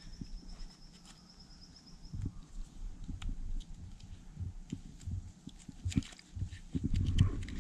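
Hands and a knife working a red deer's hind leg at the knee joint to cut off the lower leg: low rustling and handling thumps with scattered sharp clicks, loudest near the end. A high, pulsing trill runs through the first two seconds.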